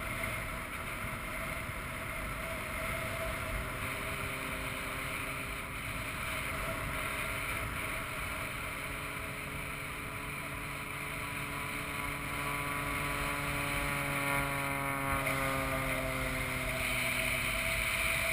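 Wind rushing over a skydiver's camera microphone during the descent under an open parachute. A propeller airplane's engine drones along with it from about four seconds in, its pitch slowly falling until it fades near the end.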